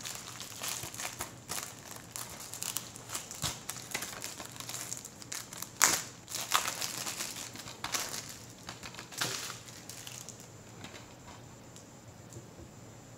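Clear plastic shrink-wrap being peeled and crinkled off a Blu-ray case: a run of irregular crackles, sharpest about six seconds in, tapering off in the last few seconds.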